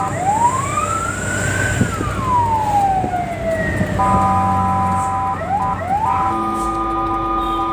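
Fire truck siren heard from inside the cab: one slow wail that rises for about a second and a half and falls for about two, then steady multi-note horn tones broken by a few quick rising yelps, over the truck's engine running.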